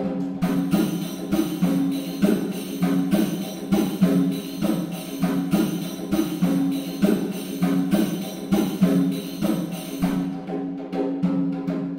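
Background music: held notes under a quick, regular percussion pattern.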